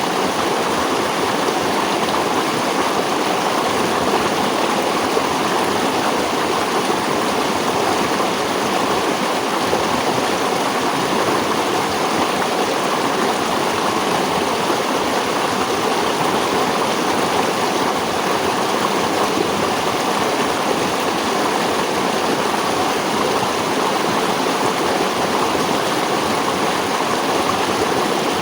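Stream water flowing and splashing steadily over rocks.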